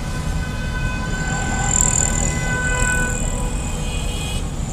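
A vehicle horn held steadily for about four seconds over the low rumble of engines and traffic.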